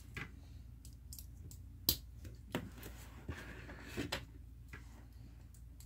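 Plastic Lego pieces clicking as they are handled and fitted together: a few scattered sharp clicks, the loudest about two seconds in.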